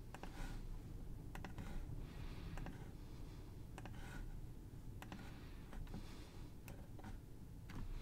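Computer mouse and keyboard clicks, scattered and irregular, some in quick clusters, over a steady low hum.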